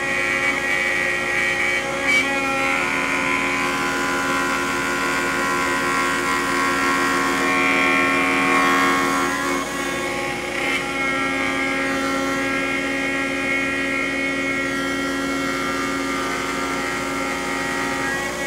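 CNC router spindle with a 1/4-inch roughing end mill cutting hard Honduran rosewood at a 40 inches-per-minute feed: a steady motor whine over the rasp of the cut. The cutting noise eases briefly about halfway, then picks up again.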